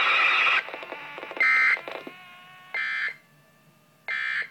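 Emergency Alert System end-of-message signal from a SAGE ENDEC: three short, buzzy digital data bursts about 1.3 seconds apart, marking the end of the tornado warning. Before the bursts, the relayed radio audio cuts off about half a second in.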